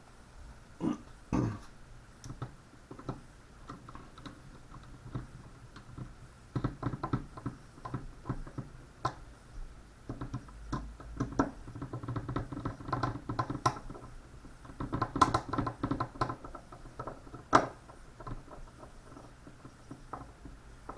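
Irregular light clicks, taps and rattles of a small screwdriver, screws and parts being handled while two screws are driven into an M4 AEG gearbox to clamp the motor wires in place. The clicking comes in clusters, thickest about fifteen seconds in, with one sharper click just after.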